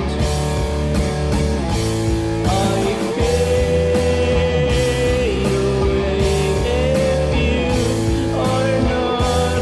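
Grunge rock band playing at full volume: drums striking steadily under a thick mix, with a long held melody line that slides from one note to the next.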